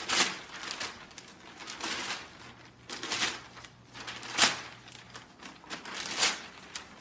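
Newspaper rustling and crinkling in a series of short bursts as a golden retriever grabs and pulls at its pages with its mouth.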